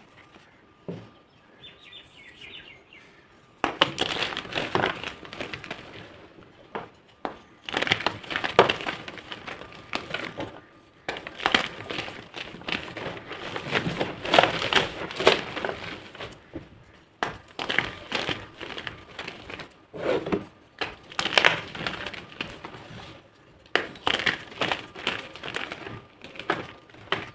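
Blocks of gym chalk being crushed and crumbled by hand, a dense crackling crunch that comes in repeated bursts, starting a few seconds in after a quiet opening.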